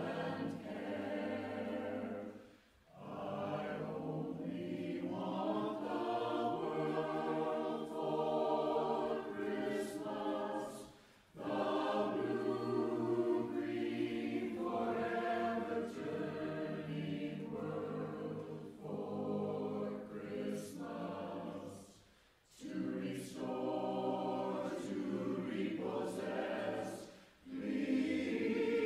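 Mixed choir of men's and women's voices singing a cappella in several voice parts, in phrases broken by brief breaths: about 3 s in, about 11 s in, twice in the early 20s, and once near the end. Clear 's' consonants from the singers sound through the chords.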